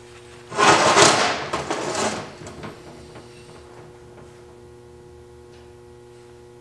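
A BMW E36 rear trailing arm with its wheel hub being shifted and set down on a wooden workbench: about a second and a half of metal clunking and scraping, then a few lighter knocks.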